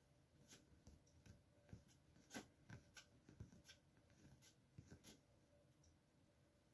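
Faint, irregular small clicks and scratches as a cat noses and paws at a plate of cookies on bedding.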